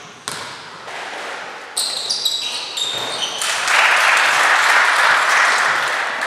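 A basketball bouncing on the gym floor, then sneakers squeaking on the court in a run of short high squeals as the players move. From about three and a half seconds in, a loud, steady rush of noise takes over.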